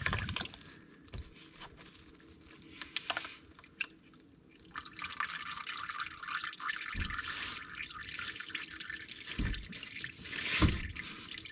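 Used engine oil dripping and trickling into a drain pan from the just-removed spin-on oil filter, the flow growing heavier about halfway through. A few dull knocks come near the end.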